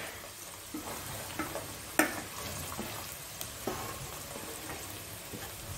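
Sliced raw onions sizzling steadily as they fry in very hot mustard oil in a kadhai, with a few sharp clicks against the pan, the loudest about two seconds in.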